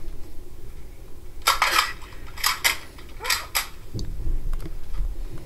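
A run of short, sharp clicks and clacks, about six within two seconds, the loudest about one and a half seconds in, then a few fainter ones.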